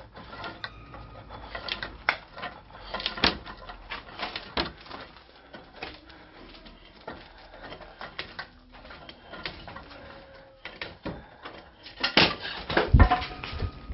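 Irregular crunching, clicking and knocking of footsteps and loose debris (broken boards, plaster, paper) being stepped through, with a cluster of louder knocks and one heavy thud near the end.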